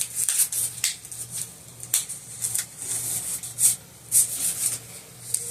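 Hard plastic parts of a battery-powered LED clip light clicking and scraping as they are handled and pushed together by hand, in irregular sharp clicks a few times a second, with the part not snapping into place.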